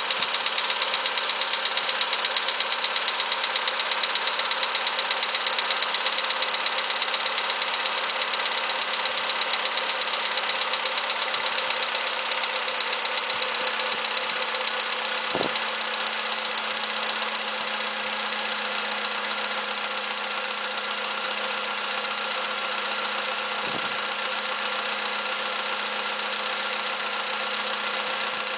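Engine idling steadily with a repetitive knock, the fault noise of a worn part that is due for replacement. Two separate sharp clicks stand out, one about halfway through and one near the end.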